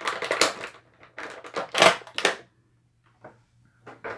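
Action figure packaging being handled and pulled apart: a run of loud, irregular crinkling and scraping of plastic and cardboard for about two seconds, then a couple of faint clicks.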